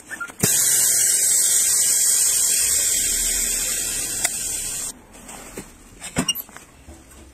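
Compressed air hissing out of a screen bubble-remover autoclave as its pressurised chamber is vented, fading slightly over about four and a half seconds and then cutting off sharply. A few clicks and knocks follow as the lid clamp is handled.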